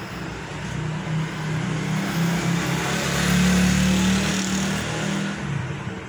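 A motor vehicle engine passing by, growing louder for a few seconds and then fading away.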